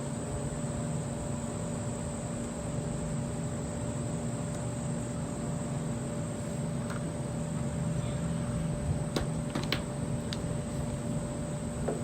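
Steady background hum and hiss with a thin, high, unchanging tone, broken by a few light clicks about nine to ten seconds in.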